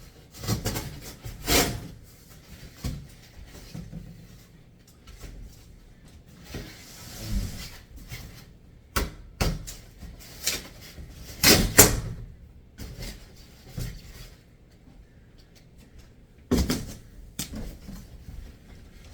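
Household objects being handled and set down: a series of irregular knocks and thuds, the loudest about twelve seconds in, with a brief rustling scrape about seven seconds in.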